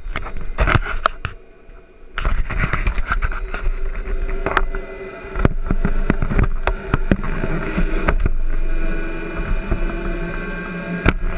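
Knocks and rubbing of the camera being handled and settled into the model jet's cockpit, with rumble on the microphone. From about eight seconds a rising whine sets in, a model jet turbine spooling up.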